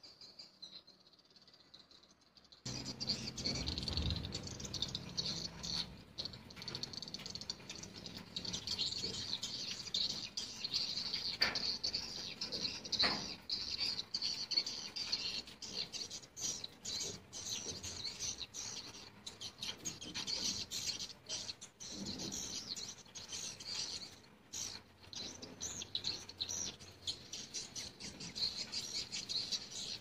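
Swiftlets twittering in a dense, continuous high chatter that starts abruptly a few seconds in, at a swiftlet house's entrance hole fitted with tweeter speakers for swiftlet calls.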